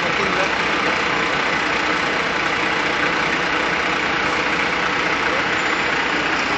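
Steady noise of idling vehicle engines and city street traffic.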